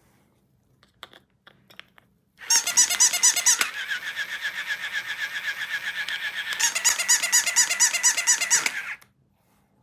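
Battery-powered plush rabbit toy's electronic sound chip switching on as its AA batteries make contact: a loud, rapidly pulsing squeak that changes pattern twice and cuts off suddenly after about six seconds. Before it come a few light plastic clicks of the batteries being seated.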